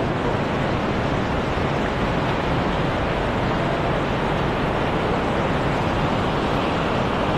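Steady rushing of a fast, muddy mountain stream running over rocks.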